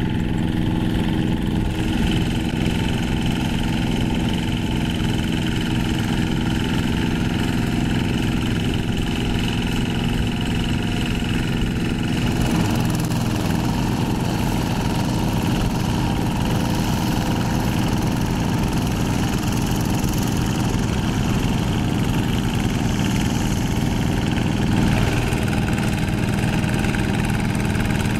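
Single-cylinder diesel engine of a two-wheel hand tractor running steadily under load while tilling a wet rice paddy. Its note changes about halfway through.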